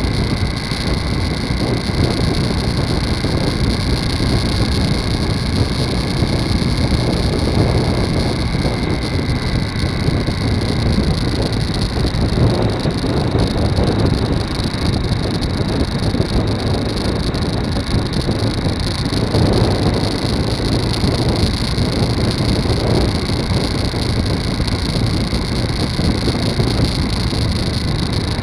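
Motorcycle cruising at a steady road speed: engine, tyre and wind noise rushing over the microphone, even and unbroken.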